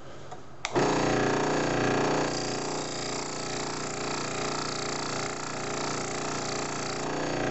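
Scroll saw switched on about half a second in, then running steadily with a fast, even pulse as its blade strokes up and down, cutting a short kerf into a hardwood block.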